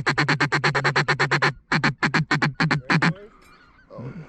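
Hand-blown duck call: a fast, loud run of evenly spaced quacks, about eight a second, with a brief break about a second and a half in, stopping about three seconds in. A hunter is calling to draw in ducks working the decoys.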